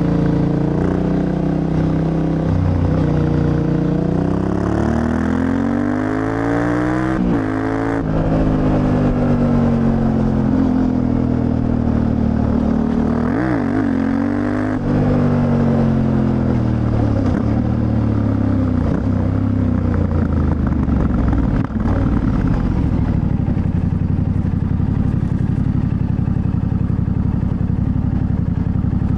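Yamaha Ténéré 700's CP2 parallel-twin engine under way, revs climbing and dropping back twice with gear changes in the first half. It then eases off and runs at a steady, even note.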